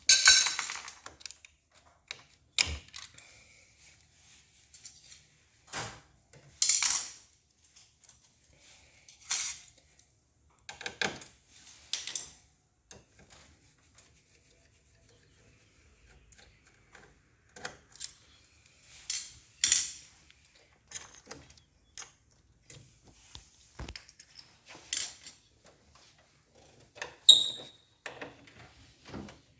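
Scattered clicks, taps and clinks of small metal and plastic parts handled by hand while a photocopier's main motor assembly is taken apart and its connectors unplugged. A loud click at the very start, and a short ringing metallic clink near the end.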